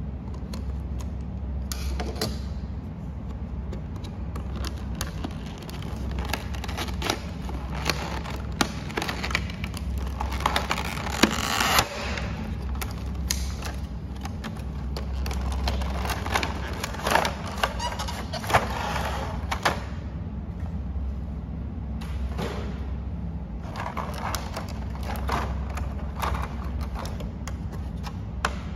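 Toy packaging being opened and handled: a utility knife at the cardboard box, then cardboard flaps and a clear plastic blister tray of toy food pieces scraping, clicking and rustling. There is a louder stretch of rustling about ten seconds in, over a low steady hum.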